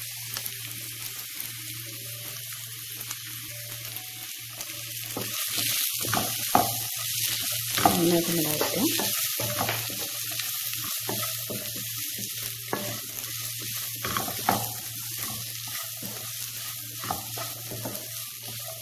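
Chicken, egg and vegetables sizzling in a nonstick frying pan while a wooden spatula stirs and scrapes through them. Knocks of the spatula against the pan are sharpest near the middle.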